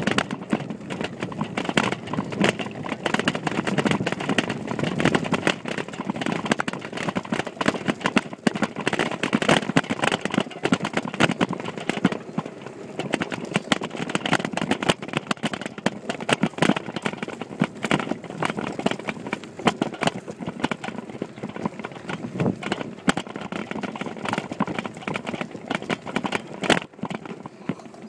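Mountain bike riding over a bumpy dirt trail, heard through a handlebar-mounted phone in a waterproof case: continual irregular rattling and knocking from the bike and mount over the bumps, with rumbling tyre noise.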